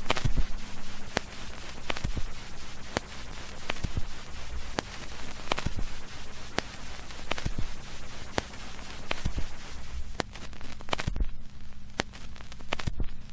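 Electronic static hiss over a low steady hum, broken by sharp crackling pops about once a second: a 'no signal' TV static effect. The hiss thins out near the end.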